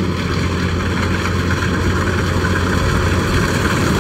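Kubota DC-105X rice combine harvester running steadily as it cuts rice: the diesel engine's even low hum with the rattle of the cutting and threshing gear over it.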